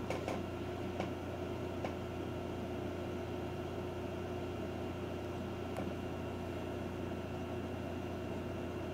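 Steady machine hum: a low drone with a steady mid-pitched tone over it. A few faint clicks come in the first two seconds and once more near six seconds.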